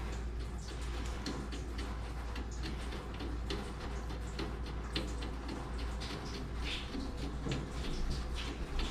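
Irregular metallic clicks and ticks of hand tools working on the rusty screws that hold a water heater's circulating pump to its flanges, over a steady low hum.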